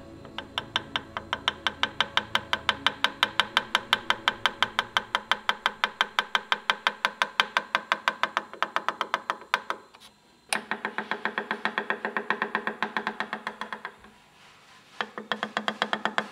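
Small hammer tapping a punch into the engraved metal inlay of a Boulle marquetry panel in a fast, even rhythm of about seven taps a second, each tap with a short ringing tone. The tapping breaks off twice for about a second, the first break ending in one sharp click.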